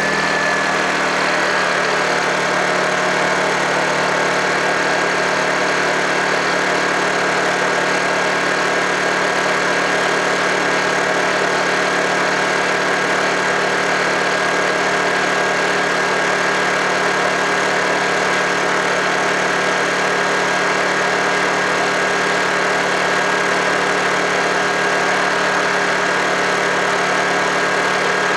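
Honda portable generator's small engine running steadily at a fast speed, with a thin high-pitched whine over the engine note that eases slightly in pitch about a second in. The engine speed is higher than the owner expects of it.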